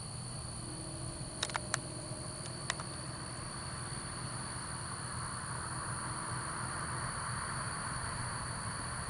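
Steady high-pitched chirring of crickets, with a few sharp clicks about a second and a half in and again near three seconds.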